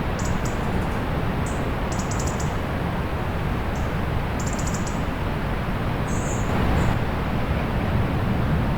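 Small birds giving high, thin chirps and short rapid trills every second or so, over a steady low rush of distant sea surf.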